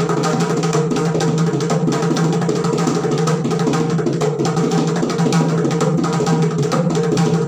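Mridangam played with both hands in a fast, unbroken stream of strokes, with a steady low ringing tone beneath. It is a Carnatic mora and korvai pattern in Adi talam.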